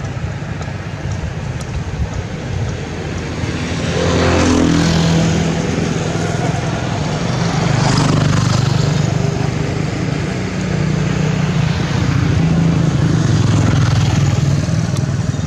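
A motor running steadily with a low hum, swelling and easing off several times.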